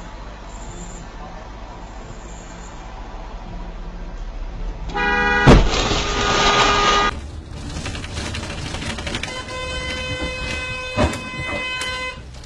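Low steady engine rumble, then a car horn sounds from about five seconds in. Just after it starts comes a sharp bang of a low-speed collision as a reversing car strikes the car behind it. A horn sounds again for a few seconds near the end, with another sharp knock.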